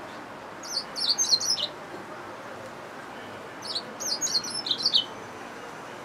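Yellow-fronted canary mule singing two short bursts of rapid, high chirping notes, one about a second in and another around four seconds in.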